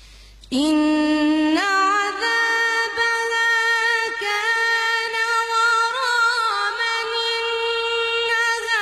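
A woman's voice reciting the Quran in melodic tajweed, starting about half a second in with one long held note that steps up in pitch twice and then holds with small ornaments.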